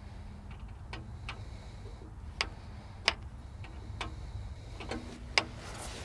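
Sharp, irregular metallic ticks, roughly one a second, over a low steady hum, from hand work at the dozer's engine-oil drain valve above the drain pan.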